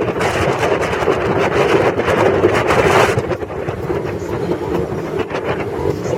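Motorboat running at speed: a steady engine drone with wind rushing over the microphone, louder for the first three seconds, and many small knocks that fit the hull slapping on waves.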